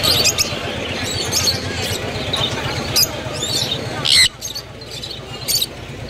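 Caged birds, parrots among them, giving short chirps and squawks over a steady background din. The loudest is one sharp squawk about four seconds in, after which the background drops.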